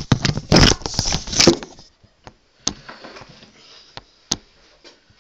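Handling noise: the phone's microphone rubbing and rustling against clothing for about two seconds, followed by a few scattered light clicks and knocks.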